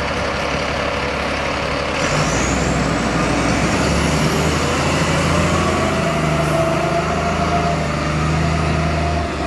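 DAF fire engine's diesel engine pulling away, revving up about two seconds in as the truck gathers speed, then easing off near the end.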